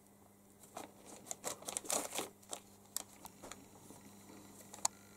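A kitten pawing and nosing at a pencil under a sheet of paper on a desk: faint paper rustling and light clicks of the pencil, with one sharper click near the end.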